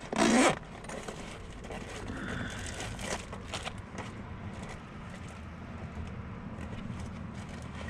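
A zip on a small fabric pouch is pulled open in one quick, loud stroke, followed by softer rustling and rummaging through its contents. Underneath is the low, steady hum of the car's engine left running.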